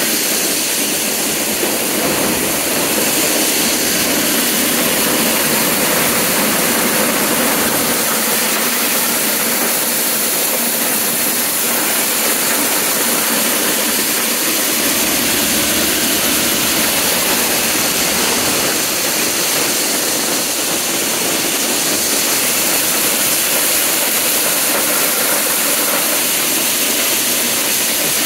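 John Deere 43 corn sheller running as it shells ears of popcorn, driven by a John Deere 720 tractor: a loud, steady mechanical noise that holds even throughout.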